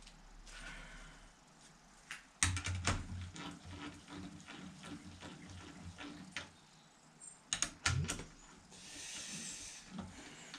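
Hand tools clinking and clicking on the metal top end of a Fordson Major engine as parts and bolts on the cylinder head are worked. There is a cluster of sharp clicks and knocks about two and a half seconds in, more clicks around eight seconds, and a brief rustle near the end.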